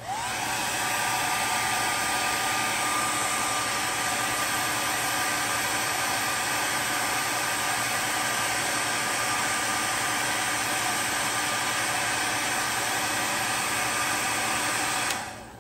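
Hair dryer switched on: its motor spins up with a quickly rising whine, then runs steadily with a rush of air and a high whine. It is switched off and winds down about fifteen seconds in.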